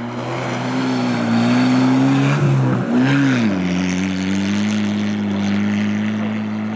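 Rally car at full throttle on a snowy gravel stage, passing close and pulling away. The engine note dips and recovers about three seconds in, then drops to a lower, steady pitch as the car drives off, with road noise under it.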